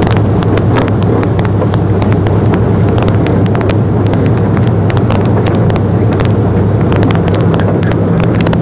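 A truck engine running steadily at idle, with a constant low hum, and many irregular sharp crackling clicks over it.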